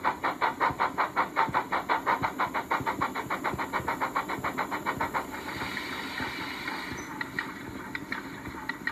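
Recorded Stanier 8F steam locomotive sound from a Locoman DCC sound decoder, played through a small speaker in the model's tender: rapid, even exhaust chuffs, about five a second, growing fainter and stopping about five seconds in, followed by a steady hiss and a few scattered clicks.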